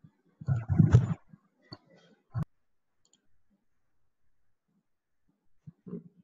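Clicks and knocks of someone working a computer, with scattered single clicks, and a louder thudding bump lasting under a second about half a second in.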